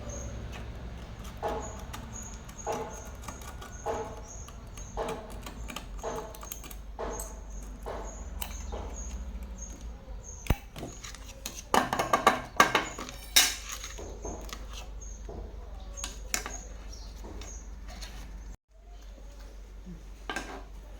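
Metallic clicks and clinks of small parts and tools being handled, evenly spaced at first, then a louder burst of clatter about two-thirds through, over a steady low hum.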